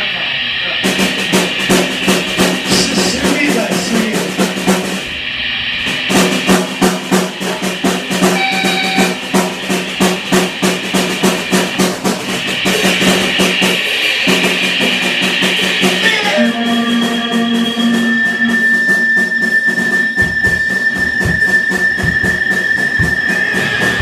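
A band rehearsing: a drum kit is played with cymbal crashes over a sustained, amplified electric guitar. The drumming pulses hardest in the middle, and from about two-thirds of the way in a single high tone is held to the end.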